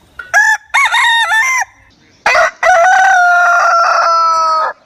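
Rooster crowing: a few short notes that bend in pitch, then one long held note that sinks slightly before it stops.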